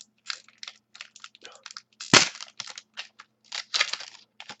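Trading cards being handled and flipped through: a run of short rustling clicks, with one loud sharp snap a little over two seconds in.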